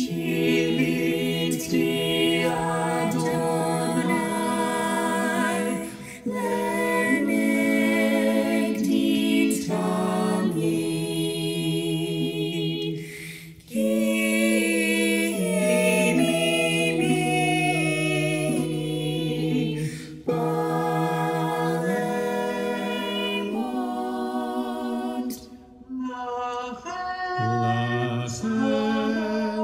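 A small group of men's and women's voices singing a cappella. They sing in long held phrases with short breaks between them.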